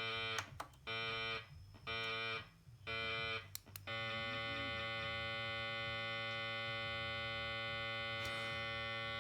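Buzzing mains-type hum through the amplifier's speaker, caused by a USB/Bluetooth audio kit wired into it. It comes in four short bursts about a second apart, then holds steady. The kit is not getting clean DC from the amplifier's regulator supply.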